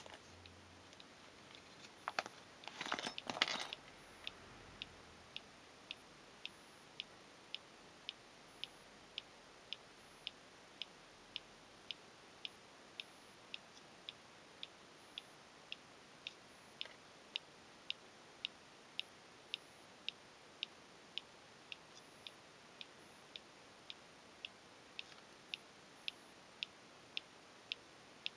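Motorcycle disc lock giving off its abnormal noise: a faint, regular ticking, about two sharp ticks a second. Near the start there is a brief rustle of handling.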